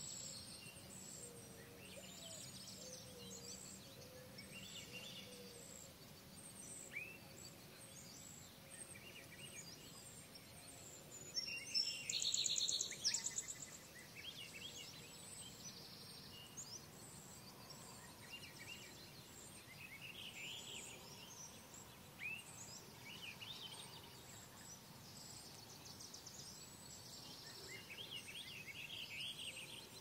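Several songbirds calling and singing in a morning chorus, with short chirps and trills throughout. About twelve seconds in, one bird sings a louder, rapid trilled song lasting about two seconds.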